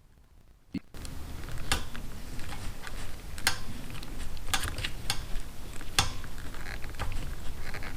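Sharp, irregular clicks and taps of small tools and wire parts being handled during a wiring repair. About a second in, a steady rushing noise starts and keeps going underneath.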